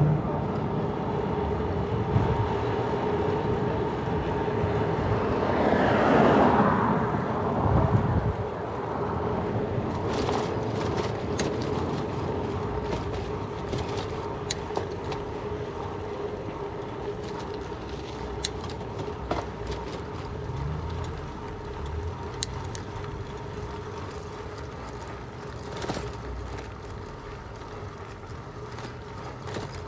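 Riding noise from a Surly Bridge Club bicycle under way: tyre and wind rush with a steady hum, slowly growing quieter. A louder swell comes about six seconds in, and scattered light ticks follow later.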